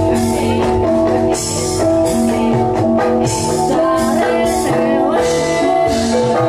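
Loud jatilan dance music, with held melodic notes that change step by step over a beat and repeated bright, noisy accents.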